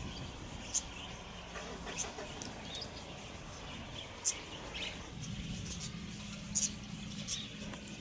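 A flock of wild budgerigars chirping: short, sharp, high calls scattered through, sometimes two in quick succession. A steady low hum comes in underneath about five seconds in.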